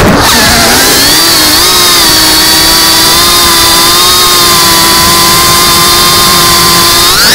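An FPV quadcopter's brushless motors whining, picked up by the onboard camera. The pitch plunges at the start as the throttle is cut, climbs back and holds steady while the drone cruises, then rises sharply near the end as the throttle opens again.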